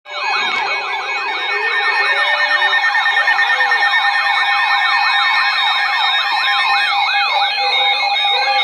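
Electronic siren in a fast yelp, with several overlapping wails rising and falling about five times a second over steady tones.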